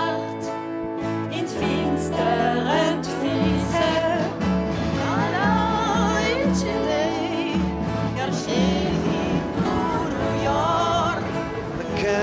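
Music: a singing voice with vibrato over steady held instrumental notes.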